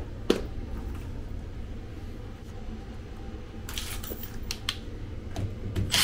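Steady low hum of the running air handler's blower, with a few sharp handling clicks early on and a brief rustle and clatter of clicks about four seconds in as tools are handled at the cabinet.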